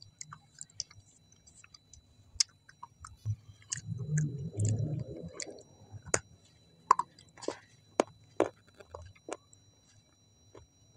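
Close-miked mouth sounds of a person eating: wet clicks and smacks as food is chewed, with a denser, louder stretch of chewing from about four to five and a half seconds in.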